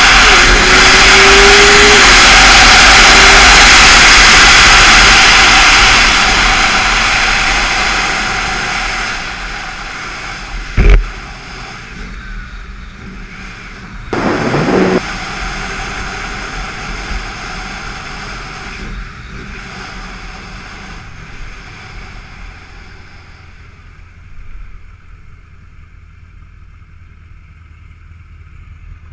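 Sport motorcycle at full throttle with heavy wind roar on the helmet-camera microphone, the engine note rising, then fading as it slows after about six seconds. There is a sharp thump near eleven seconds and a short rev burst around fourteen seconds, then quieter engine running at low speed.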